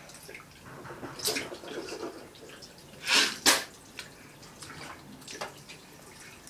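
Someone spitting out mouthwash into a bathroom sink: two sharp spits in quick succession about three seconds in, among softer water and rinsing splashes.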